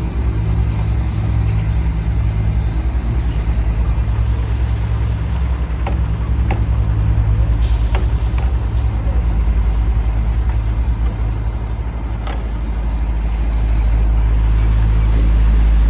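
Heavy diesel engine of asphalt paving equipment running steadily up close, with a few sharp metallic knocks midway and a brief hiss about halfway through; the engine grows louder near the end.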